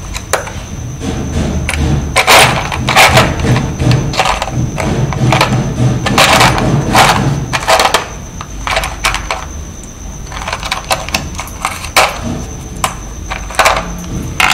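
Irregular clicks, knocks and clatter of small electronic components and tools being handled and rummaged through on a workbench, over a faint steady high whine.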